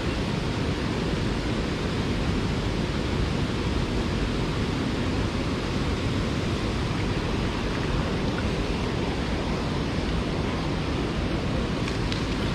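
Steady rushing of a small stream's flowing water, an even continuous noise with no breaks.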